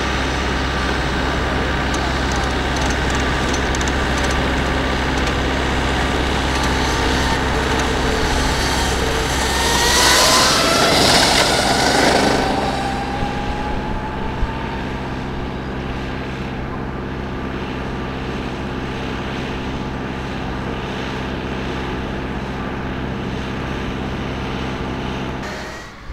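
Agni X01 electric racing motorcycle passing close at speed: a high motor whine and a rush of wind and tyre noise, loudest about ten to twelve seconds in, with the whine dropping in pitch as it goes by and then fading as the bike rides away. A steady low hum runs underneath.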